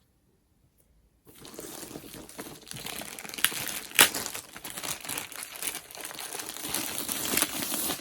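About a second of silence, then crinkly packaging rustling and crinkling steadily as it is handled and unwrapped, with a few sharper crackles, the loudest about four seconds in.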